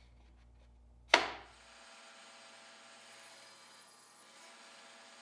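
A single sharp knock, like a piece of wood struck or set down on wood, about a second in, dying away quickly. A faint steady hum runs under it.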